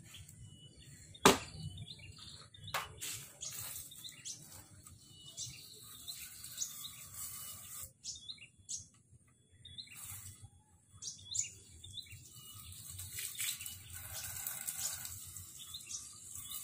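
Caged songbirds chirping in short calls, with scattered small clicks and knocks and one sharp loud click about a second in.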